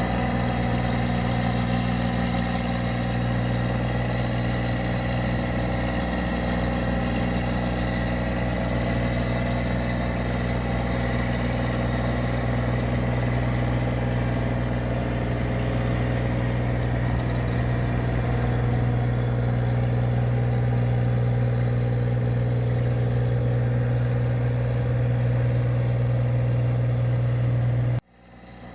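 Engine of a rice paddy machine running steadily at constant speed with a deep, even hum. It cuts off abruptly near the end.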